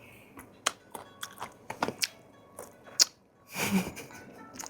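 Eating sounds: a scattered run of sharp clicks and light taps from chewing and utensils, with a short louder rush of breath-like noise about three and a half seconds in.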